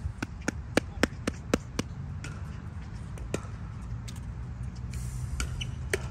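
Hollow plastic pickleball clicking off paddles and the court. A quick run of about seven sharp pops comes in the first two seconds, then a few scattered ones, over a steady low rumble.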